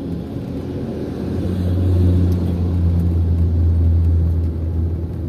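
Motor vehicle engine and road noise: a low, steady hum that swells about a second and a half in and holds.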